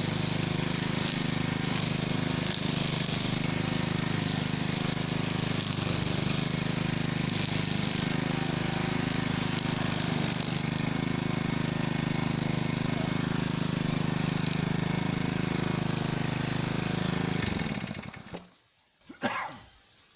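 Cub Cadet walk-behind string trimmer's engine running steadily at speed, then winding down in pitch and stopping near the end. A short high sound follows once it is off.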